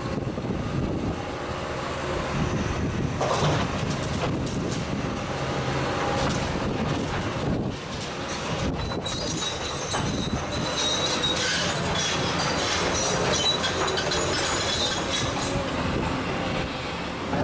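Cat 320E tracked excavator at work, its engine running steadily. About three seconds in, rubble clatters as it is tipped into a tipper truck. From about nine seconds in there is high-pitched metallic squealing.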